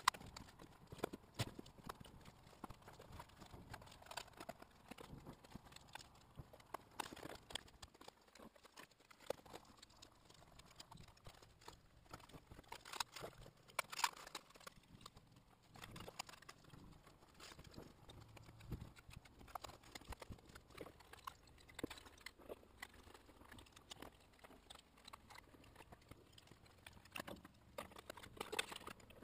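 Irregular, scattered light clicks and knocks of hand tools and metal motorcycle parts being handled during a teardown, a few louder clanks standing out.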